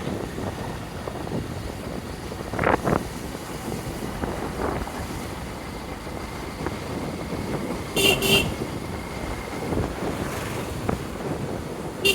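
Motorcycle ride with steady wind and road noise on the microphone. A horn beeps twice in quick succession about eight seconds in.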